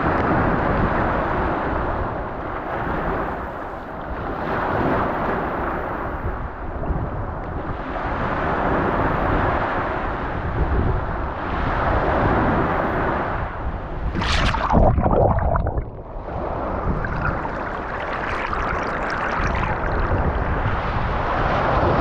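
Small surf breaking and washing up the sand right at the shoreline, a continuous rush that swells and ebbs every few seconds. One sharper splash comes about two-thirds of the way through.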